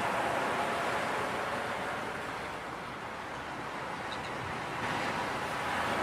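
Steady rushing wash of ocean surf, easing a little midway and swelling again near the end: the waves sound effect that opens the background song's intro.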